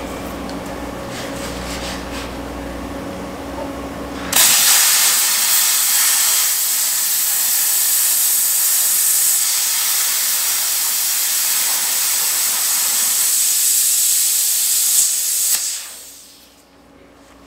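Plasma cutter cutting through the steel flighting of a mixer auger. A steady machine hum, then about four seconds in a loud, even hiss starts suddenly, holds for about eleven seconds and dies away near the end.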